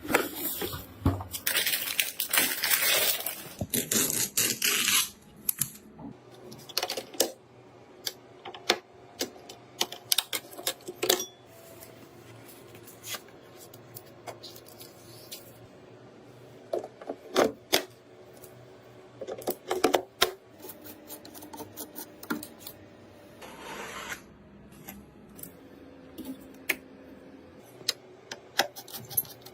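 Clicks and clatter of computer parts being handled and fitted together during a PC build, with a burst of rustling in the first few seconds and again briefly near the end.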